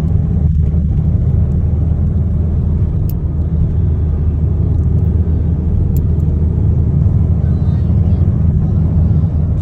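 Steady low rumble of car engine and road noise, heard inside the cabin while driving at an even cruising speed.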